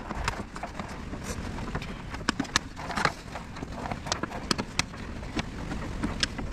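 Irregular light clicks and knocks of plastic car trim being handled and worked loose by hand, over a low rumble.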